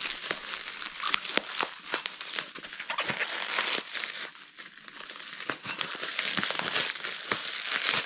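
Bubble wrap and plastic packaging crinkling and crackling irregularly as a parcel is handled and unwrapped by hand.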